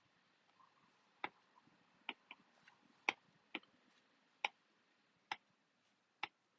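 Sharp, irregularly spaced clicks at a computer, about eight in all, the loudest about three seconds in.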